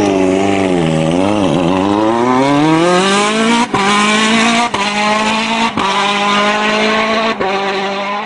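Racing car engine revving, its pitch blipping up and down, then climbing and holding high at full revs, broken four times by short sharp cuts.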